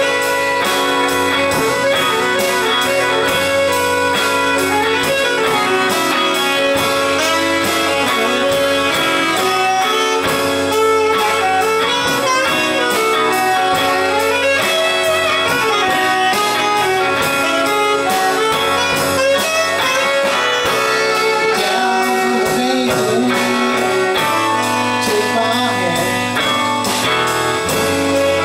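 Live band music: electric guitar, saxophone and drum kit playing together, the drums keeping a steady beat under the guitar and sax lines.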